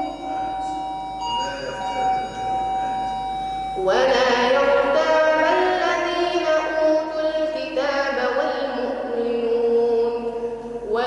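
A boy's voice reciting the Quran in melodic tajwid style into a microphone, drawing out long held notes that bend in pitch. The recitation is softer at first and grows clearly louder about four seconds in.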